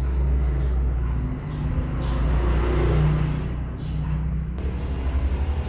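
Low rumble of a motor vehicle's engine, swelling about halfway through and then easing off.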